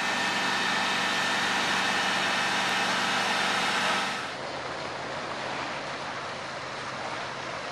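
A fire engine running steadily, a constant droning hum over a broad rush of noise. About four seconds in, the sound drops at a cut to a quieter steady rush.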